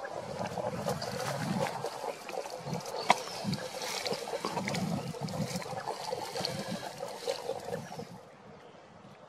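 Common spadefoot toads calling from underwater: a dense, continuous run of low, short repeated notes from many males at once, with scattered faint higher ticks over it. The chorus falls away abruptly near the end.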